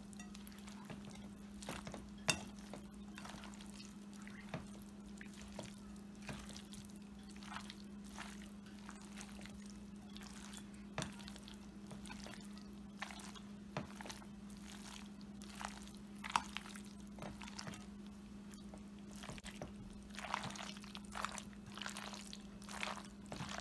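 Metal fork clinking and scraping against a glass mixing bowl while stirring a thick, mayonnaise-dressed pasta and chicken salad, in irregular strokes with a few wet squishing sounds. A steady low hum runs underneath.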